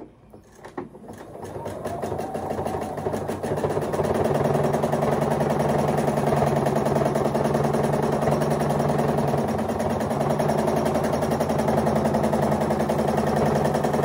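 Domestic sewing machine stitching for free-motion quilting, stitch length set to zero: a few clicks as it starts, then it speeds up over the first few seconds and settles into a steady, fast stitching rhythm.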